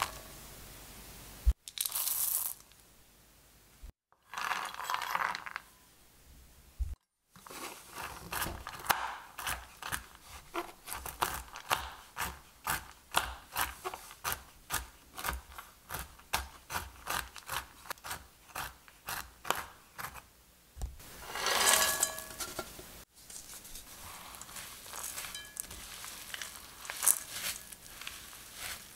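A chef's knife chopping pecans on a wooden cutting board: a long, steady run of sharp chops, about two a second, through the middle. Before it, dried cranberries drop into a glass bowl; near the end comes a brief loud rattle of nuts and chocolate chips going into the bowl, then a silicone spatula stirring the sticky oat mixture and scraping the glass.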